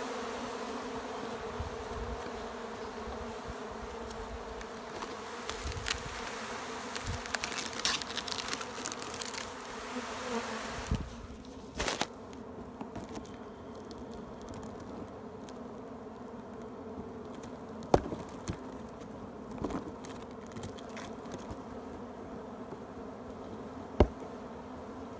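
A honeybee swarm buzzing in a steady, dense hum. A hiss over it in the first half drops away about eleven seconds in, and a few sharp clicks come later.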